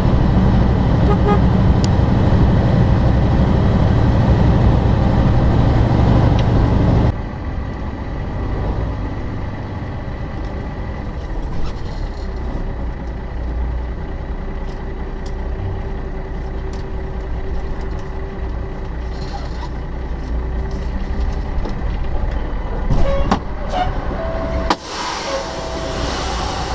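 Semi-truck engine and road noise, loud and dense while driving up the highway. About seven seconds in it drops abruptly to a quieter low engine rumble with a steady hum as the truck rolls slowly through a toll plaza. Near the end a short tone sounds twice and a hiss comes in.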